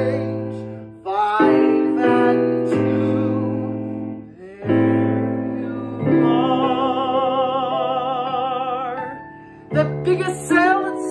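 A man singing a musical-theatre song with piano accompaniment. About six seconds in he holds one long note with vibrato for about three seconds.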